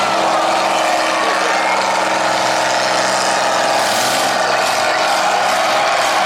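Combine harvester's diesel engine running steadily at a constant pitch, under a dense wash of arena noise.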